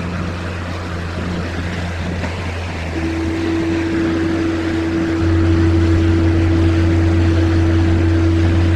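Skid steer engine running with a steady low hum. A steady whine joins about three seconds in, and the engine gets louder about five seconds in, as under more load or throttle.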